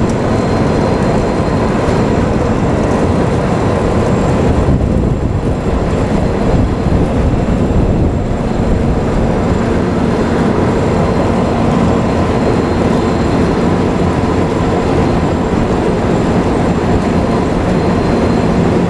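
Asphalt milling machine running steadily, its roughly 600–700 horsepower engine and cutting drum grinding off the asphalt surface. A loud, continuous heavy mechanical noise with a constant hum.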